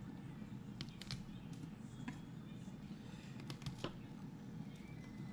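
A handful of light, irregular taps of a kitchen knife on a wooden cutting board as garlic cloves are crushed and cut, over a low steady hum.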